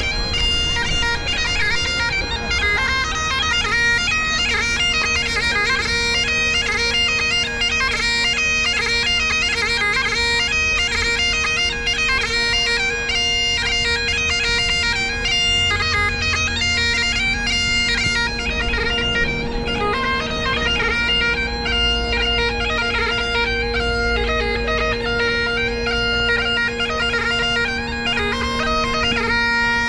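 Great Highland bagpipes playing: the chanter's quick melody runs over steady drones, and a lower drone joins about two and a half seconds in.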